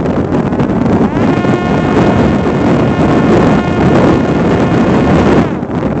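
Parrot Disco fixed-wing drone's electric motor and propeller whining in flight under heavy wind rush on the microphone. The whine rises in pitch about a second in, holds steady, and drops away near the end.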